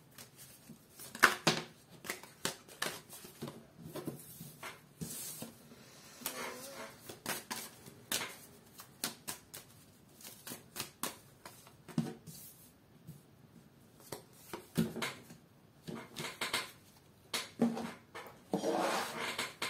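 A tarot deck being shuffled by hand, making irregular clicks and rustles, then cards being dealt and laid down one at a time on a tabletop.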